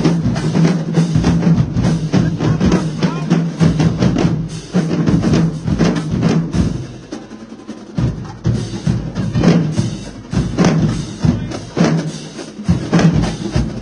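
Marching drumline playing a cadence: rapid snare and tenor drum stick strokes with bass drums and crash cymbals. It drops to a softer passage about seven seconds in, then comes back up to full volume.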